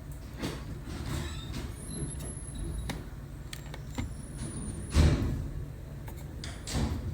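Mitsubishi Mr.SLIM ceiling-cassette air conditioner indoor unit running in cooling mode, its fan giving a steady low hum of moving air. A few light knocks and clicks sound over it, with a louder thump about five seconds in and another near the end.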